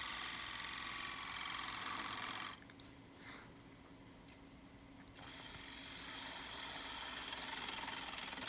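Wood lathe running while a gouge cuts the spinning foot of a dry walnut bowl, a steady cutting hiss over the motor hum. The cutting sound stops abruptly about two and a half seconds in and picks up again about two and a half seconds later, building slowly.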